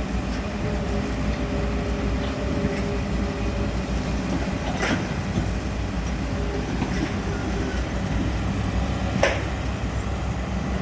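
Heavy diesel construction machinery running steadily with a low rumble, with two short sharp metallic noises about five and nine seconds in.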